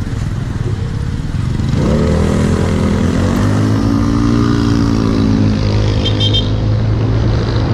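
Honda Click 125i scooter's single-cylinder engine pulling under hard acceleration: the revs climb about two seconds in, then hold fairly level as road speed keeps rising through the automatic belt transmission.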